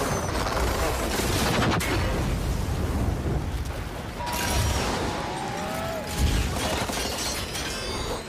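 Action-film sound mix: dense crashing and rumbling effects with music, with a few brief whistling glides about halfway through.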